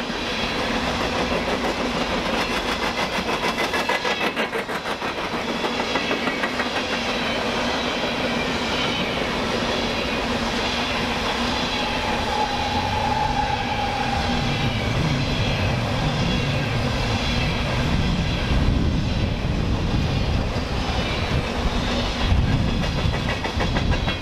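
A BNSF train's cars rolling past, with a steady rumble and a rhythmic clickety-clack of wheels over the rail joints. A brief high tone sounds about halfway through.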